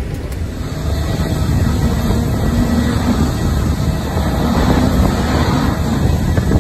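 Gusty wind buffeting the microphone: a rough low rumble with a hiss above it, growing a little louder after about a second.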